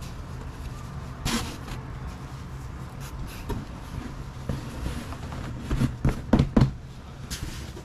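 Folded fabric and a cardboard box being handled as the fabric is packed back in: a rustle about a second in, then a quick run of four knocks and thumps about six seconds in, and a brief rustle near the end.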